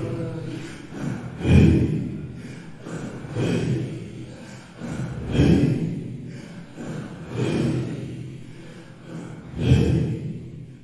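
Circle of dervishes chanting a devran zikr in unison: deep, breathy group exhalations, one forceful pulse about every two seconds.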